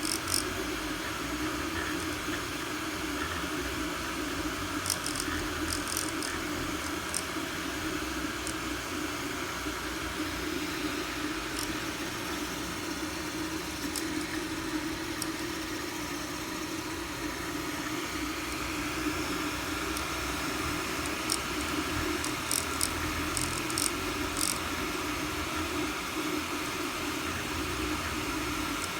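Anycubic i3 Mega-S 3D printer running with a steady hum, broken several times by small clusters of short, sharp crackles.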